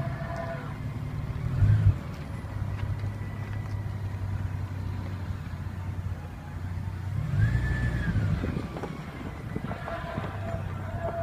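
A 1993 Toyota Land Cruiser running with a steady engine hum, swelling twice, with short high squeaks over it near the start, in the middle and near the end. The cause of the squeak is unknown.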